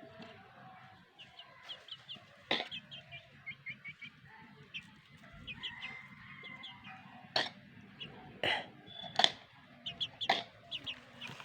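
Chickens clucking, with many short high peeps running through, while they feed. A handful of sharp, loud short sounds stand out every second or so in the second half.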